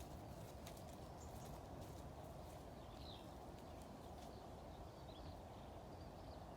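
Faint outdoor ambience: a steady low rumble, a few soft clicks in the first second, and several faint high chirps from small birds.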